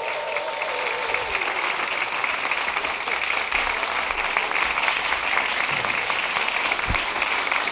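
Studio audience applauding steadily, a dense, even patter of many hands clapping. Music fades out in about the first second.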